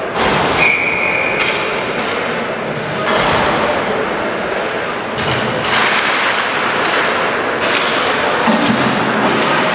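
Ice hockey play in a rink: sticks clacking and the puck thudding against the boards after a faceoff about five seconds in, with skates scraping the ice and spectators talking.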